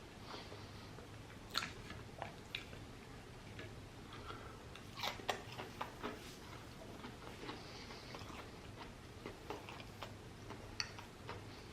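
Faint chewing and crunching of fried food, close to the microphone, with scattered short sharp clicks and crunches.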